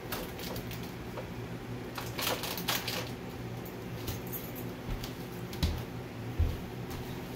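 Puppies' claws clicking and scrabbling on a hardwood floor as they wrestle, densest about two to three seconds in, with a couple of soft thumps near the end over a steady low hum.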